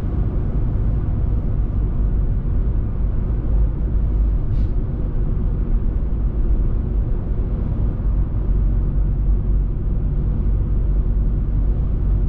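Steady road noise of a moving car heard from inside the cabin: a low, even rumble of engine and tyres on the highway.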